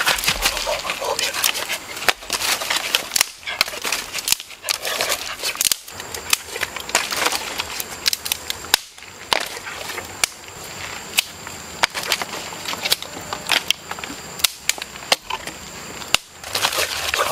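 Irregular sharp clicks and crackles, several a second, with a faint steady high-pitched whine joining about six seconds in.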